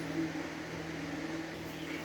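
Steady low hum of a small electric motor, with a constant drone and no breaks.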